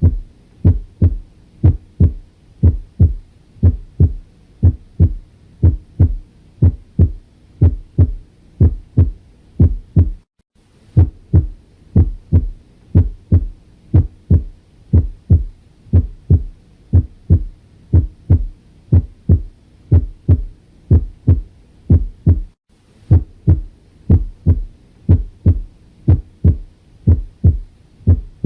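Heart sounds recorded through a stethoscope diaphragm: a steady lub-dub rhythm with the first heart sound (S1) brought out, as heard over the mitral and tricuspid areas. The rhythm breaks off briefly twice, where the recording starts over.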